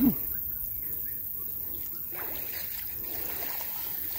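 Quiet river water lapping and trickling around men wading chest-deep, with water running off a cast net as it is lifted from the water near the end.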